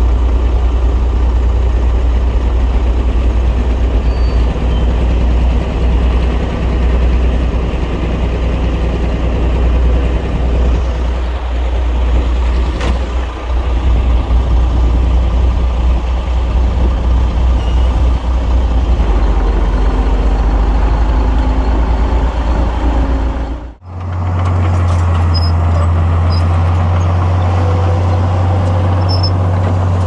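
Heavy diesel engine of earthmoving machinery running under load, with a rumbling low note. About three-quarters of the way through the sound cuts out for an instant, then a steadier engine note carries on.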